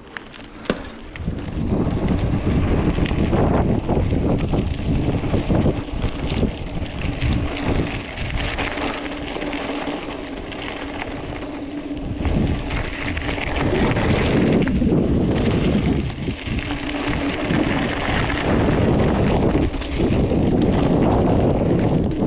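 Wind buffeting the microphone and mountain bike tyres running over a dirt trail at speed, with knocks and rattles over bumps and jumps; the noise picks up about a second in.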